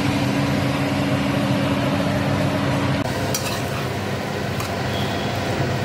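Chopped capsicum, onion and tomato sizzling in a metal kadai while being stirred, with a few light clinks of the metal spoon against the pan in the second half. A low steady hum runs under it until about halfway, where it cuts off.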